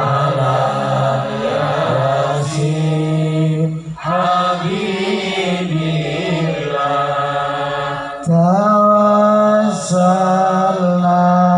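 A man's voice chanting a devotional invocation over a microphone and loudspeakers, in long drawn-out sung notes, with short breaks between phrases about four and eight seconds in.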